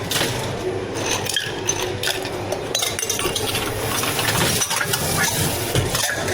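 Clinks and scrapes of cups and utensils during drink making, a run of short irregular clicks over a steady low hum.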